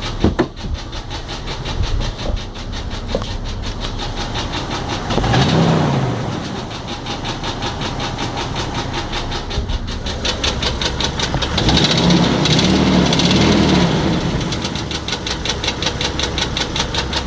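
2003 Jeep Grand Cherokee's 4.0-litre straight-six running with a fast, even knock. It is revved briefly about five seconds in and again several times near the end. The owner cannot tell whether the knock is a broken piston skirt, rod knock or a loose timing chain guide.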